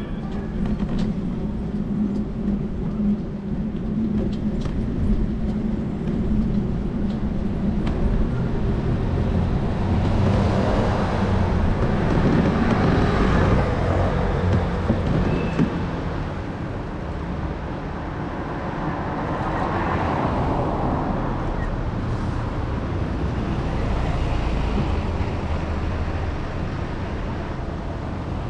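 Road traffic: motor vehicles passing over a steady low rumble, swelling and fading twice, once about a third of the way through and again about two-thirds through.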